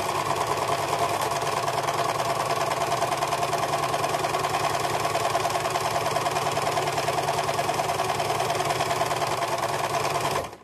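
Electric household sewing machine running steadily at speed, its needle stitching a long seam through net curtain fabric with a fast, even clatter; it stops suddenly at the end.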